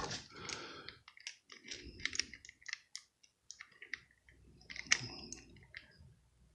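Needle-nose pliers gripping and slipping on the tight rotor nut of a spinning reel, with the reel being handled: a run of small, irregular metal clicks, one sharper click about five seconds in.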